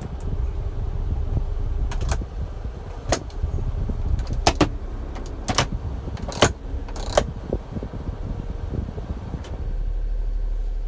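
Heater and fan controls on a 1993 Honda Acty kei truck's dashboard being worked: about six sharp plastic clicks as the A/C button and slider levers are moved. Under them runs a steady low rumble of the blower fan, which drops away near the end as the fan lever goes to OFF, leaving a quieter low hum.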